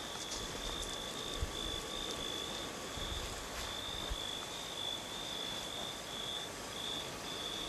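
Cricket chirping at night: one high note repeated in short pulses a few times a second, over a low rumble.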